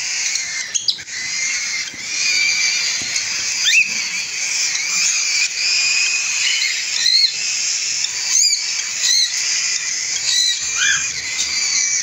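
A cage full of cockatiels calling all at once: a steady, raspy, high chatter with several sharp chirps standing out over it, more often in the second half. The owner calls them hungry babies.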